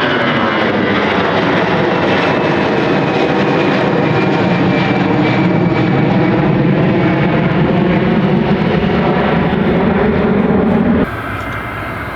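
Airliner engines running loud and steady, with several held whining tones over a broad rush. About eleven seconds in the sound cuts off suddenly and a quieter aircraft engine sound follows.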